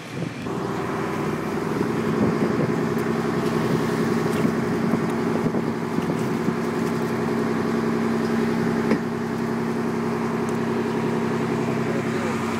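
A fishing boat's engine running with a steady, even drone that comes in about half a second in, with a few faint knocks.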